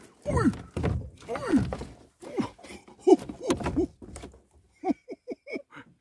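A voice giving several drawn-out exclamations, each falling in pitch, over dull thumps, then a short burst of quick laughter near the end.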